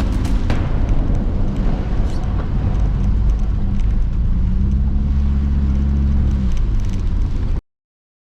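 Strong typhoon wind buffeting the microphone, a heavy low rumble with scattered knocks. A steady low hum joins it for about two seconds in the middle. The sound cuts off suddenly near the end.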